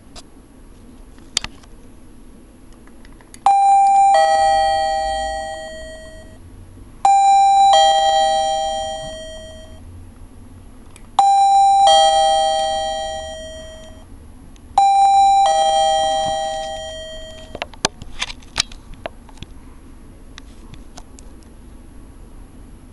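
Chinese wireless doorbell receiver chiming ding-dong four times, each a higher note then a lower one fading away, set off by a 347 MHz doorbell signal replayed from a HackRF. A few sharp clicks follow near the end.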